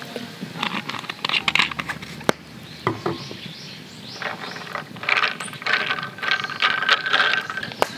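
Soda water poured over ice in a thick glass highball mug, the bubbles fizzing and crackling in bursts, with a few sharp clicks of ice against the glass.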